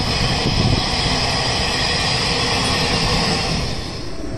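Open-top freight gondola wagons rolling past at close range: a steady rumble of steel wheels on the rails with a high hiss over it. The sound drops away abruptly near the end.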